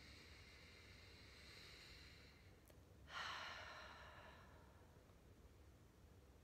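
A woman's slow, deliberate breath: a long faint inhale through the nose, then about three seconds in an audible exhale out through the mouth that fades away over a second or so.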